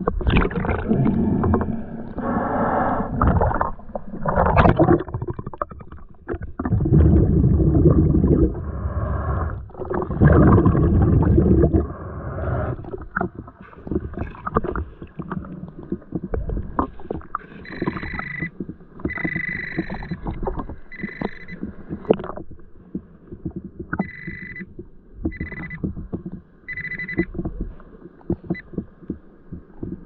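Underwater sound of a waterfall pool: muffled rumbling and gurgling water with loud surges in the first half. From about the middle on, an underwater metal detector gives short steady beeps, about six with gaps between them, signalling a metal target on the bottom.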